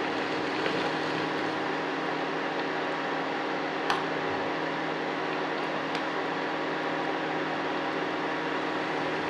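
Steady electric hum and fan noise from an induction cooktop running under a steel pot, with a few light clicks of a steel ladle against the pot, the clearest about four seconds in.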